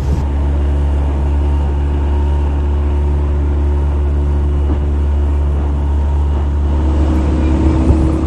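Outboard motor on a small aluminium boat running steadily at speed, its low, even drone mixed with the rush of water from the wake.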